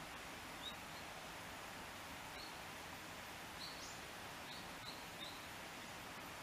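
Small birds chirping, several short high chirps scattered over a steady background hiss, one sweeping upward a little before the four-second mark.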